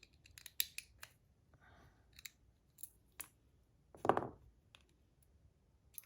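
Small sharp metal clicks and taps from the parts of a bronze magnetic fidget slider being handled and pulled apart, with one louder clack about four seconds in.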